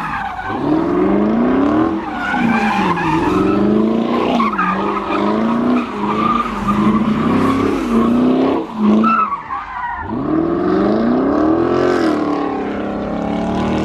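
A car drifting: its engine revs up and down over and over while the tires squeal against the pavement.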